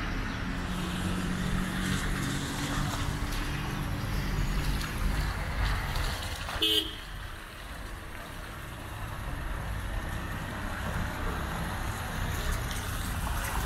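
Road traffic: a vehicle engine running for the first half, a short horn toot about halfway through, then a steadier, quieter traffic background.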